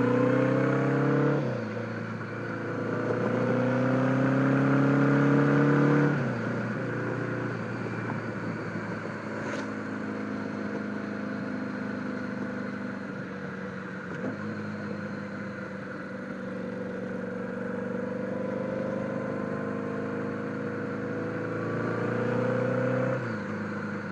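1976 Honda Gold Wing GL1000's flat-four engine heard while riding, picked up on a helmet microphone. Its pitch climbs under throttle and drops off sharply three times, with a long steadier stretch of cruising in between.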